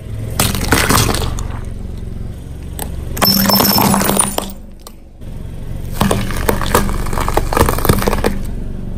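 Car tyre rolling over and crushing brittle objects: repeated bursts of crunching and cracking over the steady hum of the car's engine. The sound drops out briefly about halfway through, then the crushing starts again.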